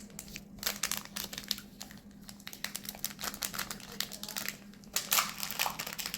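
Foil wrapper of a Magic: The Gathering collector booster pack crinkling in the hands as it is opened, a rapid, irregular run of crackles that grows louder about five seconds in.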